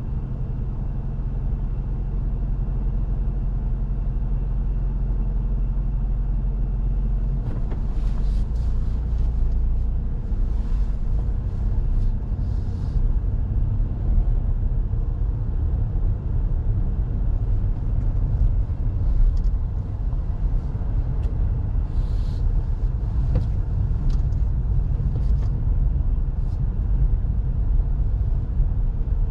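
Car engine and road noise heard from inside the cabin: a steady low rumble while the car waits in traffic, turning rougher from about seven seconds in as the car moves off and drives on, with scattered faint clicks and knocks.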